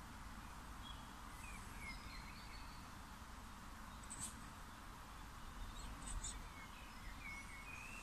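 Faint bird chirps and short twittering calls, scattered over steady low background noise, with a couple of brief clicks about four and six seconds in.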